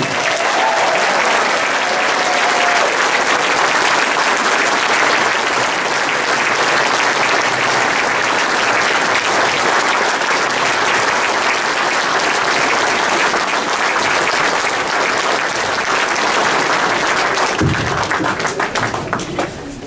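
Audience applauding steadily, thinning out over the last couple of seconds.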